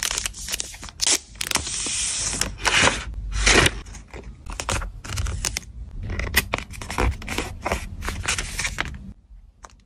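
Clear plastic photocard sleeves and paper packaging crinkling and rustling as they are handled and slid together: many sharp crackles, with a longer scraping rustle about two seconds in.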